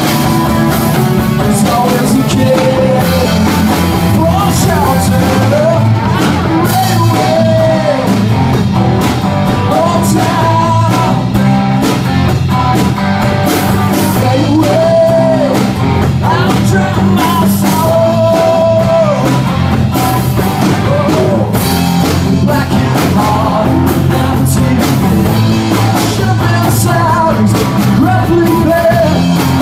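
Live rock band playing a song: acoustic and electric guitars, bass guitar and drum kit, with a sung lead and long held notes that bend in pitch.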